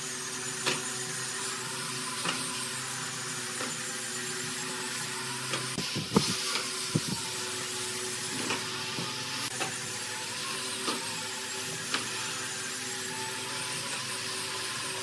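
Plastic crates being carried and set down on a concrete floor, giving short hollow knocks at irregular intervals, the loudest about six seconds in. Underneath runs a steady mechanical hum with a hiss.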